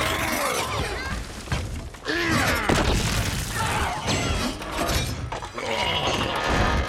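Film sound effects of giant robots fighting: metal crashing, shattering and tearing, with whirring mechanical sounds that swoop up and down in pitch. A heavy crash comes about two seconds in after a brief lull.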